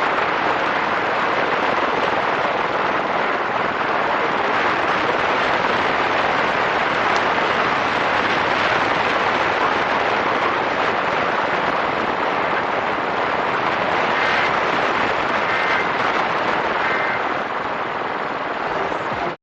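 Loud, steady radio static with no programme audio, as when a station's signal is weak or lost; it cuts off abruptly at the very end.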